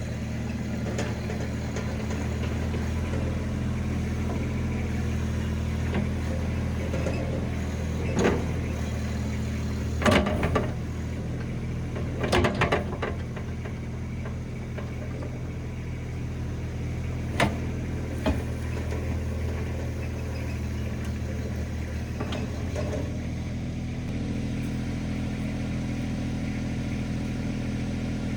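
RIPPA RS06 mini skid steer engine running steadily while the machine works hard ground. Several sharp clanks of the bucket and frame are heard, the loudest in a cluster a third to halfway through. The engine note shifts slightly near the end.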